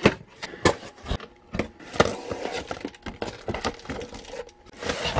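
A cardboard box being opened by hand and an NVR recorder in plastic air-cushion packaging lifted out: scattered cardboard knocks and clicks with crinkling plastic rustle, the rustle strongest about two seconds in and near the end.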